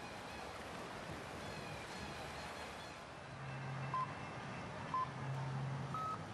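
Electronic start-signal beeps: two short beeps a second apart, then a longer, higher beep, the countdown that starts a canoe slalom run. Underneath runs the steady rush of whitewater.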